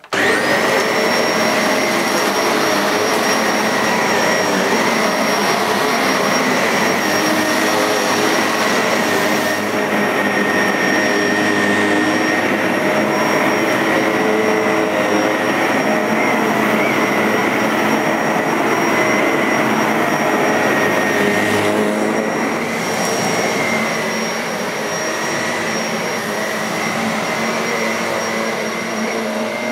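AEG Nimble bagless upright vacuum cleaner switched on in carpet mode, its suction motor and brush roll motor running steadily with a high whine as it vacuums the carpet. It starts suddenly at the outset and runs a little quieter for the last few seconds.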